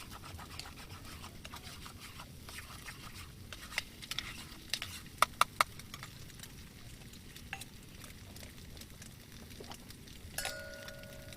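Light clinks and scrapes of small metal utensils and cookware handled and stirred, with three sharp clicks about five seconds in, over a steady background hiss. Near the end a steady two-pitch tone starts suddenly.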